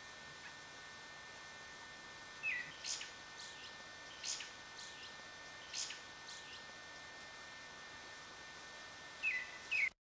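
Wild bird calling: short, sharp chirps in small groups every second or two, over a faint steady background hiss. The sound cuts off abruptly at the very end.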